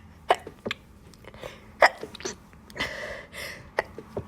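Stifled sneezes: a run of short, abrupt, held-in sneezes, the two strongest about a third of a second in and just under two seconds in, with smaller catches and breathy intakes between.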